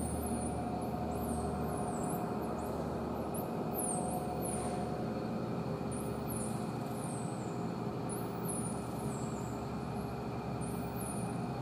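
Steady hum and hiss of machinery, with short high chirps that fall in pitch, repeating about once or twice a second.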